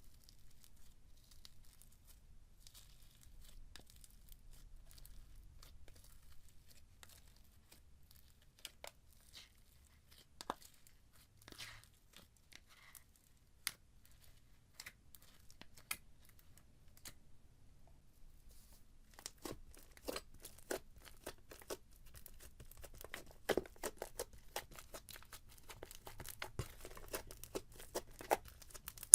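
Slime being worked by hand, squeezed and stretched, giving a stream of small sharp clicks and pops. The clicks grow denser and louder about two-thirds of the way in.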